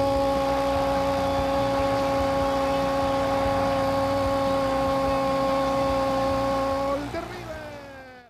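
A football commentator's long held shout of "gol", one sustained note at a steady pitch over a noisy background. After about seven seconds it drops in pitch and fades out.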